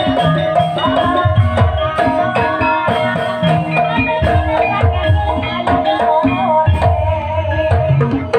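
Live Javanese gamelan music of the kind played for an ebeg horse-trance dance: kendang hand drums beating a busy rhythm under ringing pitched metal notes and a wavering melody line.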